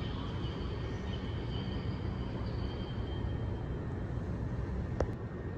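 Elevator car descending: a steady low rumble with a faint high whine, and a single sharp click about five seconds in.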